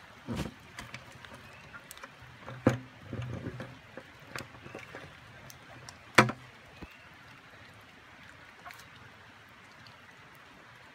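Water splashing and sloshing in a shallow pool as salamanders are tipped back in, with a few sharp knocks, the loudest about six seconds in.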